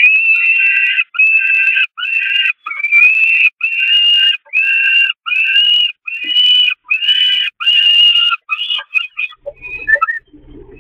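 Peregrine falcon chick begging for food: about ten loud, drawn-out, high wailing calls in quick succession, roughly one a second, breaking into shorter, choppier calls near the end.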